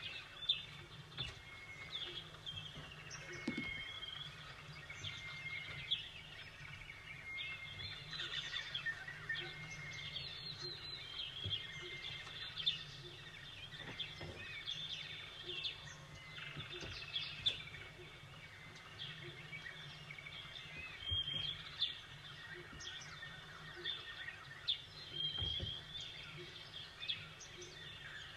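Small songbirds chirping and calling, many short chirps and brief whistles overlapping throughout, over a low steady rumble.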